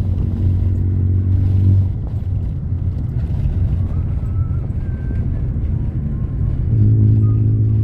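Steady low mechanical hum, like an engine running, louder for the first couple of seconds and again near the end.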